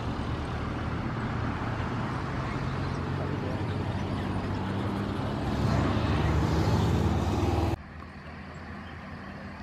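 Steady mechanical running noise of airport apron ground operations around a parked Boeing 737-700, a low hum with several steady tones. It grows louder about five and a half seconds in and cuts off abruptly near the end, leaving a fainter background.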